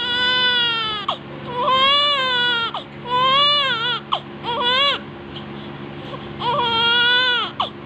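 Newborn baby crying: four wails in quick succession, each rising and then falling in pitch, then a pause of about a second and a half before a fifth wail near the end.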